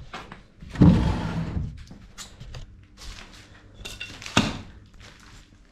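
A heavy thud about a second in that dies away over half a second, then scattered light knocks and clicks, with another sharp knock a little past four seconds.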